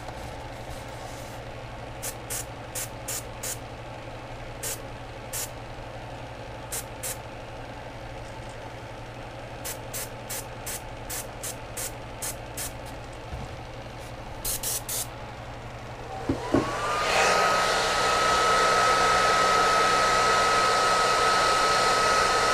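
Paasche airbrush spraying in short hissing bursts, trigger pulled again and again, over a steady low hum. About sixteen seconds in a hair dryer switches on, its whine rising quickly and settling into a steady high tone with a rush of air, drying the freshly sprayed paint on the lure.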